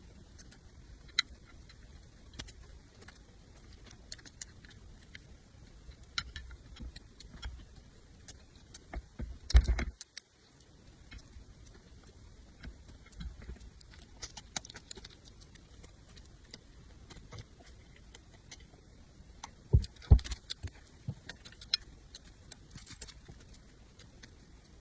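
Close-miked eating sounds: scattered wet clicks and smacks of chewing, with a couple of louder knocks about ten and twenty seconds in.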